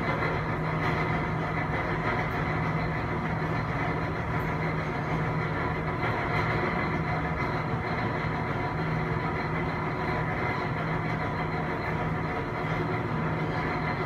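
Inside a KONE MonoSpace elevator car travelling down at full speed: a steady low hum with an even rush of air and rope noise, unbroken as it passes the floors.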